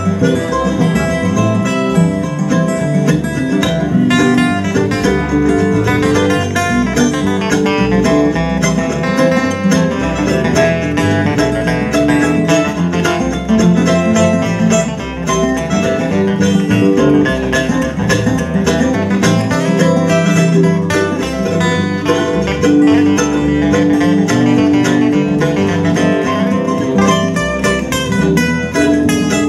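Acoustic string band playing an instrumental break: acoustic guitars picking the melody over a plucked upright bass, with no singing.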